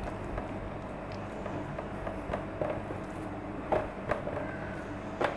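Hands patting and pressing soft dough flat against a tabletop: scattered soft taps, with a couple of sharper knocks in the last two seconds, over a steady background hum.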